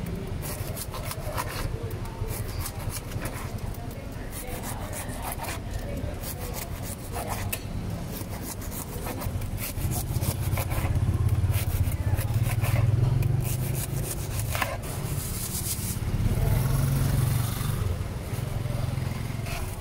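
Serrated bread knife sawing through loaves of soft white bread on a wooden board, a long run of short scraping strokes. A vehicle engine's low rumble swells under it about halfway through and again near the end.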